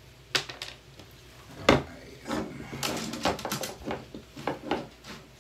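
Hard objects knocking and clattering: one sharp knock a little under two seconds in, then a quick run of clicks and taps.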